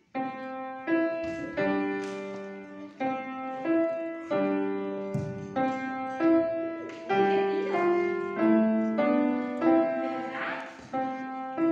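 Piano playing a steady run of chords, each struck sharply and left to ring, a new one every second or less.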